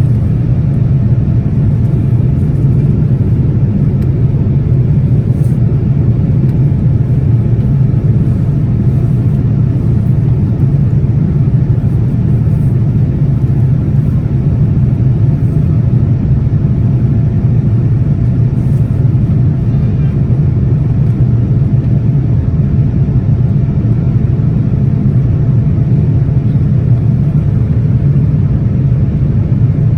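Boeing 787-10 airliner climbing after takeoff, heard inside the passenger cabin: a loud, steady low rumble of engine and airflow noise that holds even throughout.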